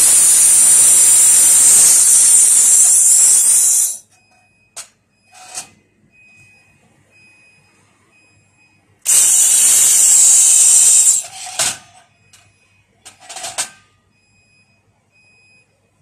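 Handheld fiber laser welder running on a sheet-metal seam: a steady high hiss of the gas jet and weld for about four seconds, a second run of about two seconds past the middle, and a few short spurts as the trigger is tapped.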